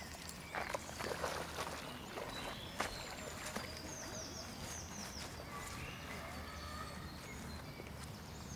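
Songbirds chirping in repeated short falling phrases, with a few splashes in the first three seconds as a beagle wades into a pond and starts to swim.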